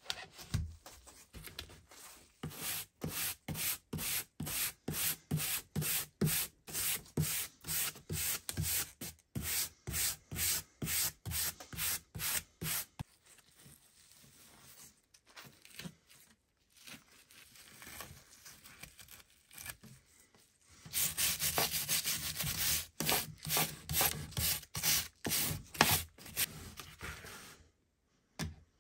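Rhythmic rubbing strokes on a wooden tree-trunk slice, about two a second, as it is worked by hand. A quieter patchy stretch comes in the middle, then faster, denser strokes near the end.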